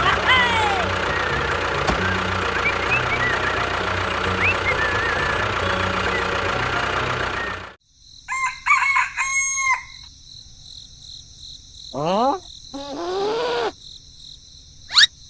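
Chickens and a rooster crowing and clucking over a dense background that cuts off suddenly about eight seconds in; after that come a few short clucking calls and whistle-like pitch slides, one falling and one rising.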